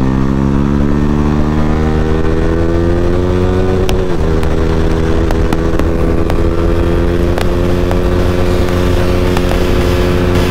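Yamaha R15's 155 cc single-cylinder engine with a modified exhaust, heard from the rider's seat: climbing steadily in revs under throttle, a quick upshift about four seconds in, then holding a steady high note at speed. Wind rush on the microphone underneath.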